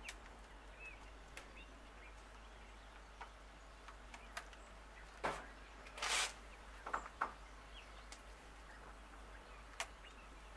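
Baking paper rustling twice as it is handled and folded over a pork shoulder, followed by a few light clicks, with faint birdsong in the background.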